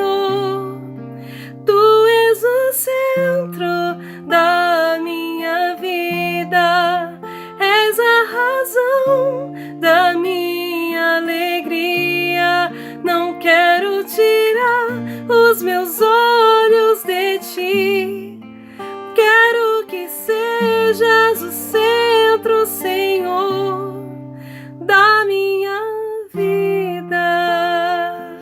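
Acoustic worship music: a plucked acoustic guitar over a bass line that changes note every second or two, with a wavering lead melody carried without words.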